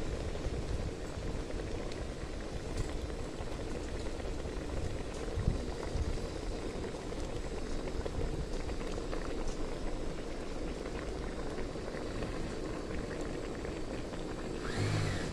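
Mushroom curry bubbling at a steady boil in an aluminium pot.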